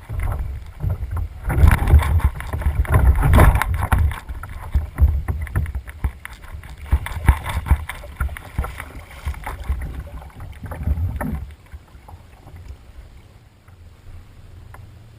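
Pelican kayak being paddled or handled on the water: irregular knocks against the plastic hull and splashing, with a low rumble. It is heaviest in the first few seconds and dies down about eleven seconds in.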